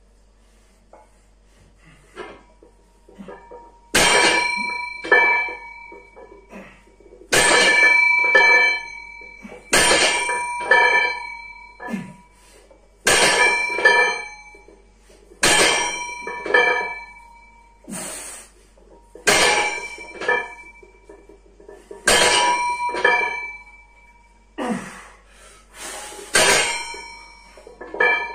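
Loaded barbell with iron plates repeatedly set down hard, a ringing metal clang each rep about every two and a half to three seconds, each followed about a second later by a lighter clink of the plates.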